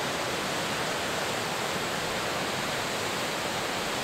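Powerful torrent of water gushing from a dam outflow and cascading down a rocky slope: a steady, unbroken rush.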